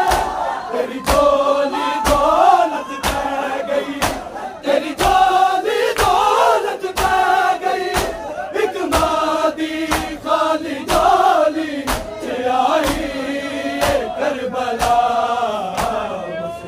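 A crowd of men chanting a Shia noha in unison, with hands slapping on bare chests in matam at a steady beat of about one strike every three-quarters of a second.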